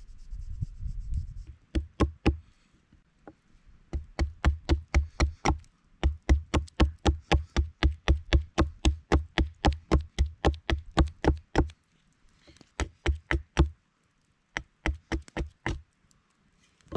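Roselli axe chopping at a small wooden blank resting on a log, in quick runs of short, sharp strikes about four a second, with brief pauses between the runs.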